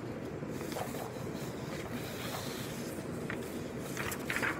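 Light rustling of a sheet of paper being slid and lifted on a wooden tabletop, over a steady background hiss; the clearest rustle comes near the end.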